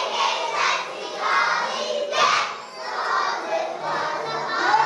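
A group of young children singing and shouting together, with music faintly beneath.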